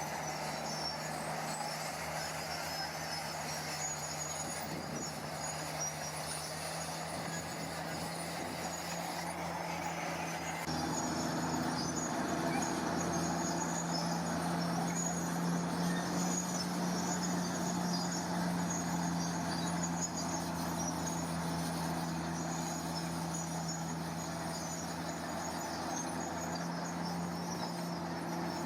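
Diesel engine of heavy earth-moving machinery running with a steady hum, growing louder and fuller about ten seconds in.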